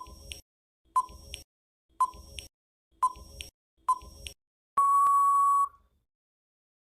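Electronic countdown-timer beeps: five short beeps about a second apart, then one longer beep of about a second that marks the time for answering running out.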